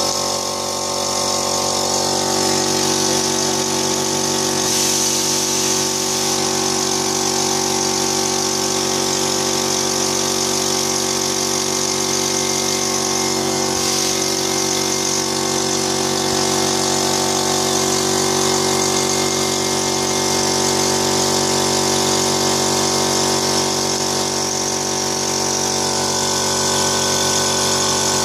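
Stainless-steel pancake-making machine running: its motor and drive wheel make a steady mechanical hum, with a hiss above it.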